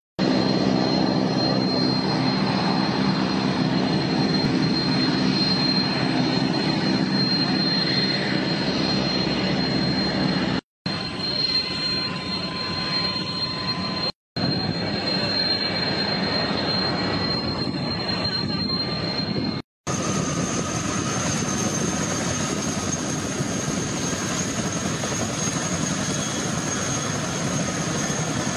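Boeing CH-47 Chinook helicopters' turbine engines running on the ground: a loud, steady rush of engine noise with a high, thin whine over it. The sound cuts out briefly three times, and after the last break the whine sits higher.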